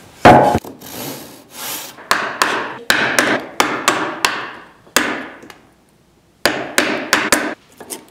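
Wood chisel chopping a rabbet into the end of a softwood 2x4: a series of sharp knocks and cracks as chips split away. The loudest knock comes just after the start, and there is a brief pause a little past the middle.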